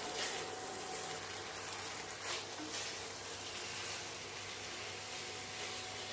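Fried rice with soya chunks and vegetables sizzling softly and steadily in the pan as it is stir-fried, with a few faint clicks of the spatula.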